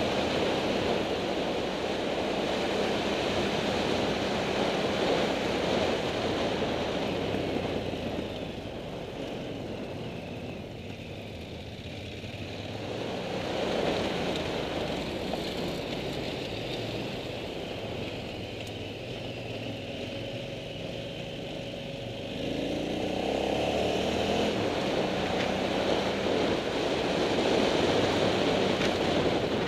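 Motorcycle engine running while riding along a gravel track, mixed with wind rushing over the microphone. It is quieter through the middle stretch and grows louder again about 22 seconds in.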